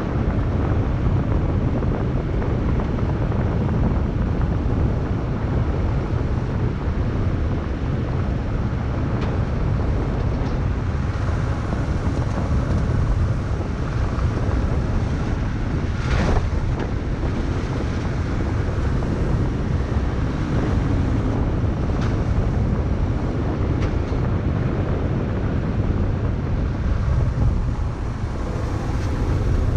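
A car driving on a gravel road, heard from a camera mounted on the outside of the car: steady, low wind rumble on the microphone mixed with tyre noise on gravel. A single sharp knock comes about halfway through, with a few fainter clicks after it.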